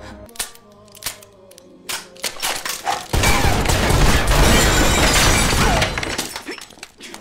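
Sustained volley of pistol fire with glass shattering and breaking. It starts with a few sharp cracks, swells into a dense, loud burst about three seconds in, and dies away after about three seconds.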